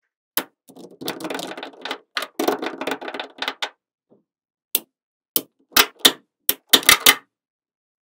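Small magnetic metal balls clattering and rattling as handfuls of them are pressed together, then about ten separate sharp clicks in the second half as pieces snap into place.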